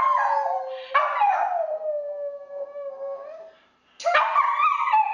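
A puppy howling in long drawn-out howls: one ends about a second in, a long slowly falling howl follows, and after a short break a third begins near the end.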